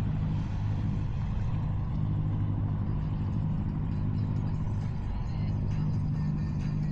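A boat's engine running at a steady low drone.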